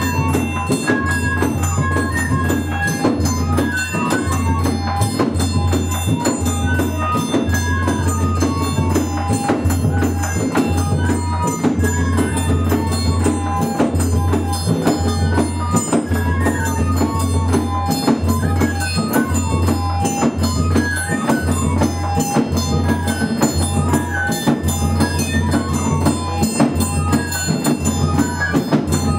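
Chirimía of Colombia's Pacific coast playing traditional music: transverse flutes carry a quick, hopping melody over a steady, repeating bass-drum beat and constant small percussion.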